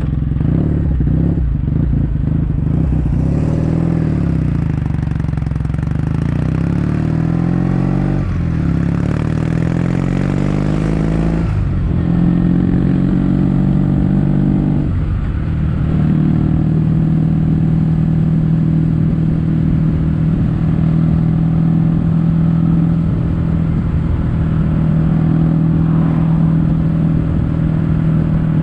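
Kawasaki W800's air-cooled parallel-twin engine exhausting through Yamato stainless steel Cabton silencers while riding: the engine note changes with short breaks at gear changes about 8, 12 and 15 seconds in, then holds steady at a constant speed.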